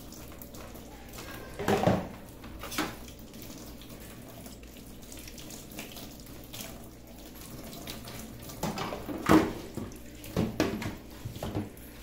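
Tap water running into a stainless steel sink while plastic fridge parts, an egg tray and a small container, are rinsed by hand. Several sudden knocks of hard plastic against the sink stand out, about two seconds in and again in a cluster near the end, the loudest about nine seconds in.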